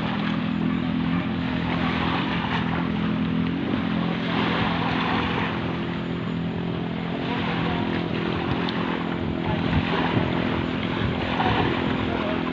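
Racing boat engine fitted with a stock piston, running steadily at speed on a test run across open water. It is a constant-pitch drone, with swells of hiss rising and falling every few seconds.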